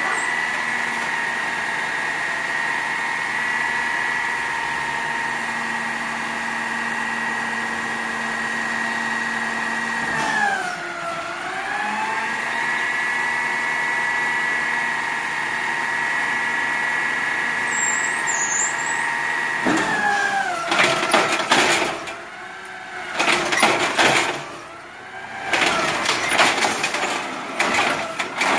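Automated side-loader garbage truck running its hydraulics with a steady high whine that dips in pitch once and comes back, about ten seconds in. After about twenty seconds the whine gives way to loud, irregular clanks and bangs from the lift arm and a plastic cart.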